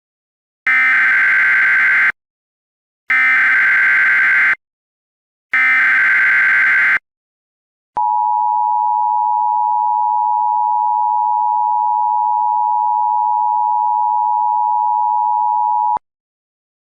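Emergency Alert System alert opening: three bursts of SAME header data, each a harsh digital screech of about a second and a half, then the EAS two-tone attention signal (853 and 960 Hz together), a steady dual tone held for about eight seconds that cuts off sharply.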